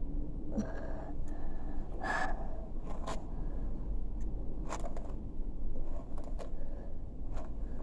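Scattered light clicks and short rustles of small things being handled, over a low steady hum.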